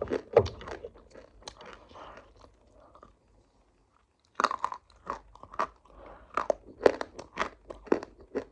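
Close-up crunching as someone bites and chews a hard, crunchy food. The crunches stop for about a second around three seconds in, then resume in quick, irregular strokes.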